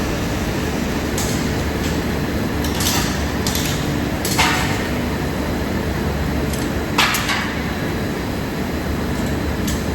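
Steady machine noise with several short knocks or clanks at irregular intervals; the two loudest come about four and a half and seven seconds in.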